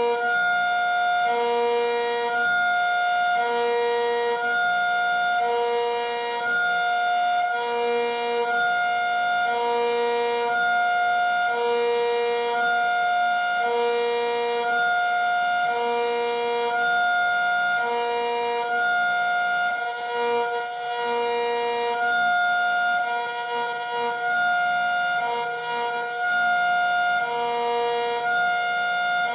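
ACA Superbanshee outdoor warning siren sounding its hi-lo signal: a low tone and a high tone alternate evenly, each held for about half a second.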